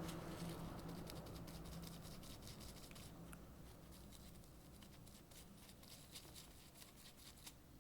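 Faint scratching and small ticks of light handwork, typical of brushing or wiping a small circuit board clean after soldering, over a faint low hum that fades out in the first few seconds.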